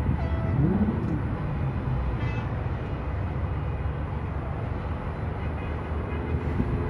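Steady rumble of distant highway traffic, with a brief higher-pitched tone about two seconds in.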